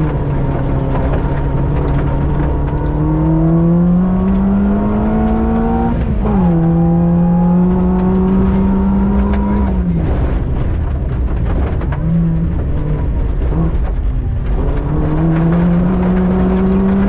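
Citroën C2 VTS rally car's 1.6-litre four-cylinder petrol engine, heard from inside the cabin, accelerating hard on a gravel stage with gravel noise under the tyres. The revs climb, drop at a gear change about six seconds in, climb again, fall away as the car slows about ten seconds in, and rise again near the end.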